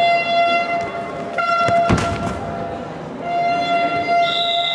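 A horn blown in the sports hall, one long steady note that breaks off briefly twice, with the thud of a football being struck about two seconds in. Near the end a shrill whistle starts.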